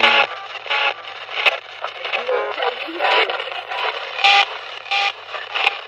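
Spirit box sweeping rapidly through radio stations: choppy split-second fragments of broadcast voices and music, each cut off almost at once, with hiss in between.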